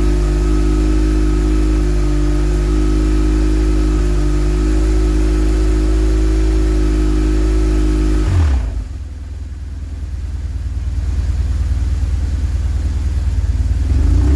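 BMW R 1150 GS boxer twin engine held at a steady 3000 rpm during an oil pressure test, then the throttle is released about eight and a half seconds in and it drops back to a lower, rougher idle.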